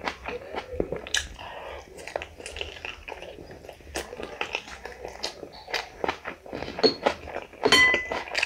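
Close-miked eating sounds: wet smacking, biting and chewing as curried meat is bitten off the bone, with irregular clicks and crunches. A short high squeak sounds near the end.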